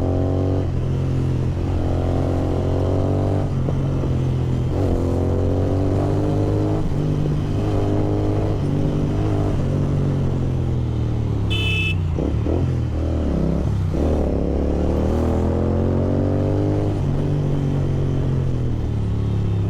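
Kawasaki Z900's inline-four engine through an Austin Racing exhaust, pulling through the gears: its pitch climbs, then drops at each shift, again and again. A short horn beep sounds about twelve seconds in.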